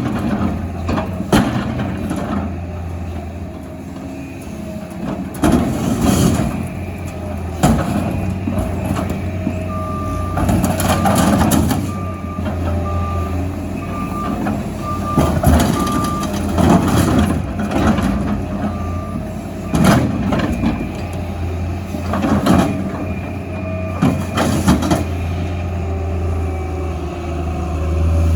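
Heavy diesel engine running steadily, with a backup alarm beeping at an even pace for several seconds in the middle. Loud metal clanks and crashes break in at irregular moments throughout.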